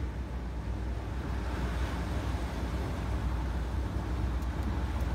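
Steady outdoor rumble, with the most energy low down, typical of wind buffeting the microphone by the sea, with a few faint clicks near the end.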